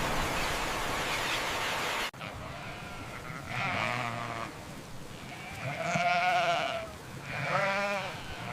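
Three wavering bleats from farm animals, each about a second long with a trembling pitch. They follow a steady rushing noise that cuts off suddenly about two seconds in.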